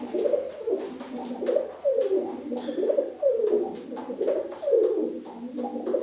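Domestic pigeons cooing: a run of falling coos, one about every half second, with sharp ticks among them.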